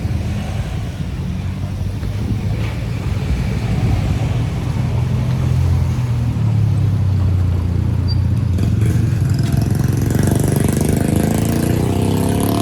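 Motor vehicle engine running close by, then revving up with a rising pitch near the end as it accelerates.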